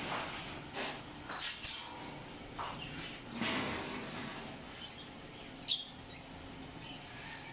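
Pneumatic clip (hog-ring) gun firing twice in quick succession about one and a half seconds in, clipping galvanized wire mesh cage panels together. Wire mesh panels then rattle and scrape as they are handled, with a few short high chirps a little after the middle.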